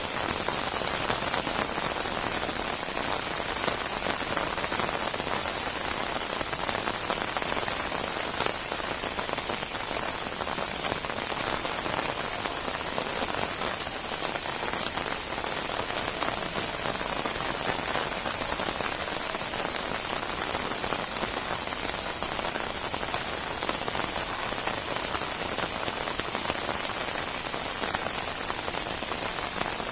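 Steady rain of a rainstorm falling on a surface: an even hiss of dense, fine drops that holds constant, with no thunder or gusts.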